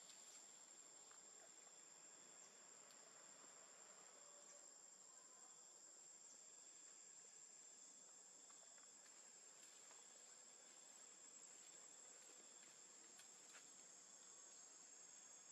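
Faint, steady high-pitched drone of insects such as crickets, with a few soft scattered ticks.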